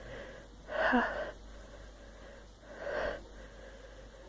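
A woman's sharp, voiced gasping breaths as a sneeze builds while a Q-tip tickles her nose. There is a loud gasp about a second in, with a falling pitch, and a softer one near three seconds.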